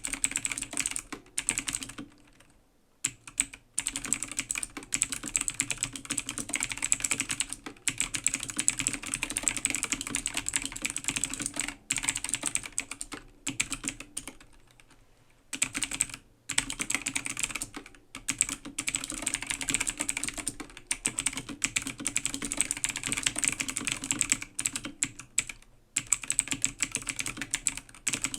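Fast typing on an A2 AG0302 mechanical gaming keyboard with clicky blue switches: a dense run of sharp key clicks that pauses briefly about two seconds in and again near the middle.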